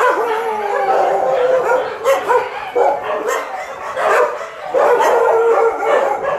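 Several dogs howling and yelping at once, with overlapping, wavering cries that rise and fall in pitch.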